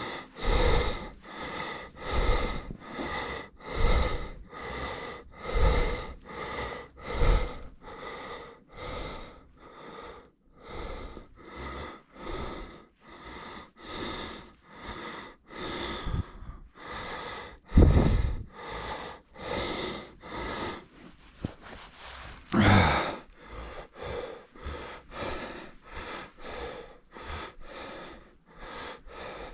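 A cyclist breathing hard and rhythmically from the effort of pedalling a fat bike uphill, close to the microphone, each breath about every second or less. One louder, harsher exhale about three-quarters of the way through.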